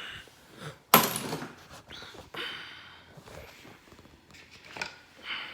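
Tools and parts of a tool set being handled: a sharp clack about a second in, then lighter clicks and scraping, and another click near the end.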